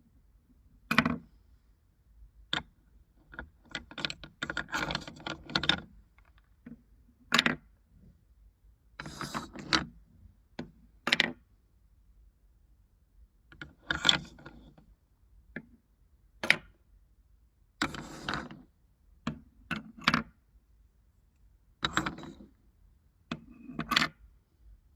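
Marbles clicking and rattling through a marble run: irregular sharp clicks and short clattering runs, a second or two apart.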